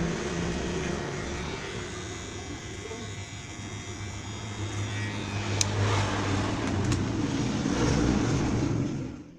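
HK-900 corded electric hair clipper running with a steady buzz as it trims sideburn and cheek stubble, getting louder about halfway through and cutting off suddenly at the very end.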